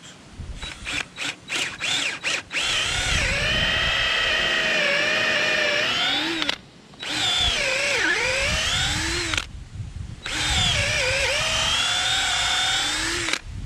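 Cordless drill boring a hole all the way through a wooden fence post with a long bit: a few short trigger blips, then three long runs with two brief stops, the motor's whine dipping in pitch as it loads up in the wood.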